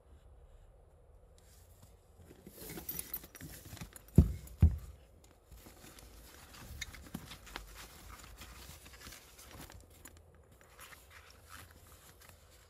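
Rustling, scraping and small clicks as rubber dry gloves on their cuff rings and a red fabric zip pouch are handled, with two dull thumps close together about four seconds in.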